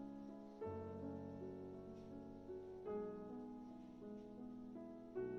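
Soft background piano music, slow chords struck about every two seconds.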